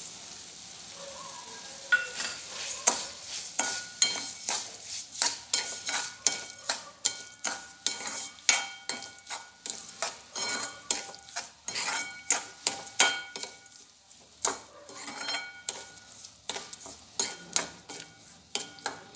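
Steel spoon stirring and scraping thick grated beetroot halwa in a steel kadhai, with sharp ringing clinks of metal on the pan one to two times a second. Underneath is a faint sizzle, which is heard alone for the first two seconds before the stirring starts.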